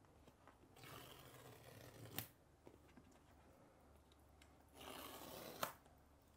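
MacBook Pro cardboard box being opened by hand: two faint scraping stretches, each ending in a sharp click, the second shortly before the end.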